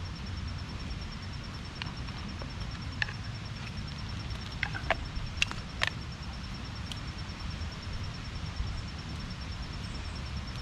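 Fatwood fire burning with a few scattered crackles and pops over a low steady rumble.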